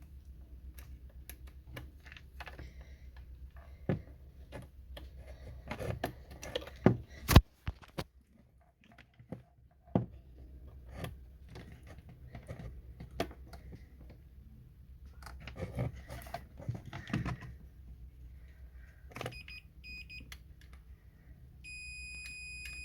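Clicks and knocks of a multimeter's probes and wiring being handled, with one sharp knock about seven seconds in. Near the end the multimeter's continuity tester gives two short beeps, then a steady beep: the start switch is conducting, so the switch is working.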